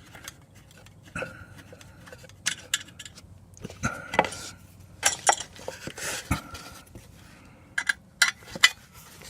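Scattered metallic clinks, clicks and knocks from hands and tools working on the air compressor's fittings and lines, with the compressor switched off.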